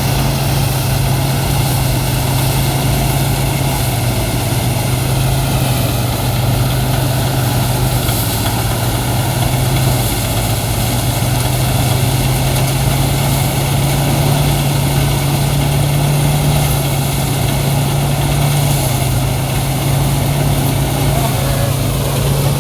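Truck-mounted rice thresher running steadily under load, its engine holding a constant low hum under the noisy rattle of the threshing drum. Its rough sound is one the owner likens to a machine about to break down, though it keeps working.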